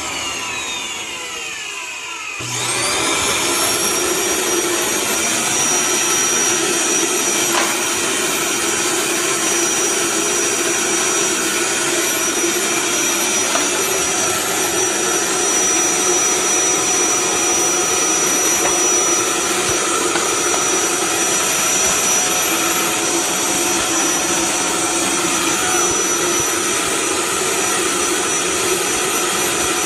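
Eureka 3670G canister vacuum cleaner's motor winding down with a falling whine. About two and a half seconds in it starts up again, the whine rising quickly and then running steadily with a constant high tone.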